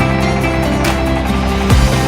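Background music with a steady drum beat and sustained bass notes.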